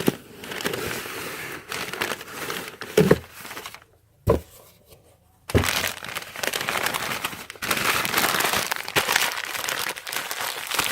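Packaging being handled and crinkled during an unboxing: rustling and crinkling in two long stretches, the second louder, with a couple of sharp clicks between them.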